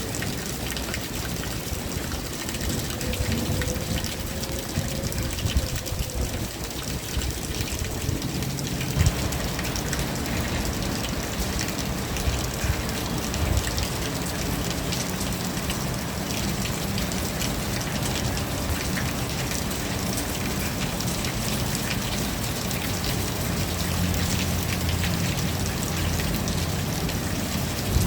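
Steady rain falling, drops pattering on surfaces, with a faint low hum underneath that grows steadier about nine seconds in.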